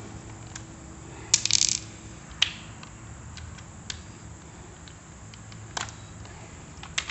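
Metal hand tools being handled: scattered sharp clicks and clinks, with a short quick run of rattling clicks about a second and a half in, like a ratchet wrench and socket being picked up and fitted.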